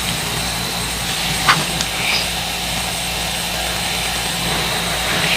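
Steady background hum and hiss, with one light click about a second and a half in and two fainter ticks just after.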